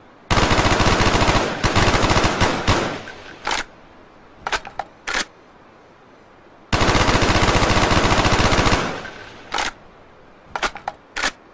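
Steyr AUG assault rifle firing on full automatic: two sustained bursts of about two seconds each, several seconds apart. Each burst is followed by a few separate sharp clacks.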